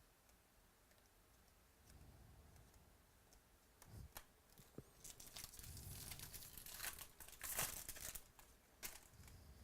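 Trading card pack's foil wrapper being torn open and crinkled, a run of dense crackling about halfway in that peaks near the end, after a couple of faint knocks.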